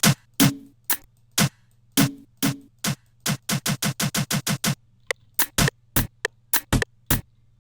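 Short drum and percussion samples sliced from a loop, triggered one by one in FL Studio's Slicex: separate short hits, some with a brief low tone, in an uneven pattern, with a quick run of about six hits a second about three seconds in.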